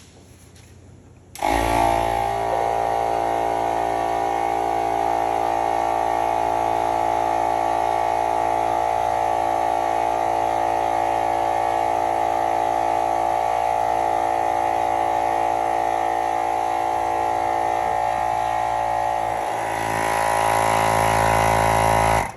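Stop & Go 2000 single-piston portable tire compressor switching on about a second in and running steadily as it inflates a freshly plugged truck tire. It gets a little louder over the last couple of seconds, then shuts off abruptly.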